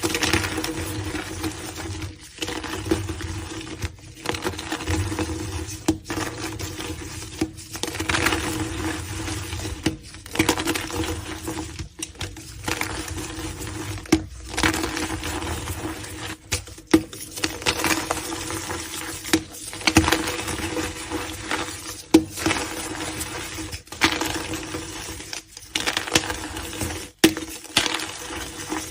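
Crunchy gym chalk being crushed, a dense crunching and crackling in spells of about two seconds broken by short gaps, with sharp crunches now and then. A faint steady hum runs underneath.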